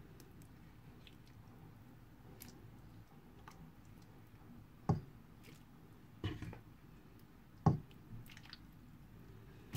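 Soup being ladled from a stainless steel pot into a bowl: soft scooping and pouring sounds, with three sharp knocks of the ladle against the pot or bowl in the second half, about a second and a half apart.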